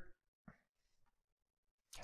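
Near silence: room tone, with one faint brief sound about half a second in.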